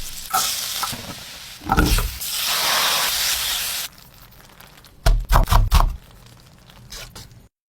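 Food sizzling in a hot pan for a couple of seconds, with knocks of utensils against the pan before and after.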